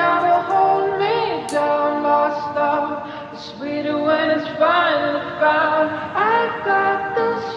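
Background music: a song with a female singing voice.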